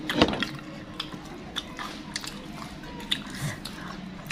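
Close-up chewing and biting of sauced sausage wrapped in wonton skin, with wet mouth clicks and smacks scattered through, the loudest right at the start.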